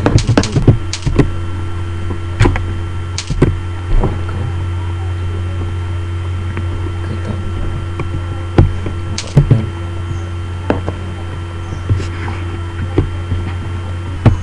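Computer mouse and keyboard clicks as an AutoCAD drawing is made: a quick run of clicks in the first second, then single clicks every second or two. Under them runs a steady low electrical hum.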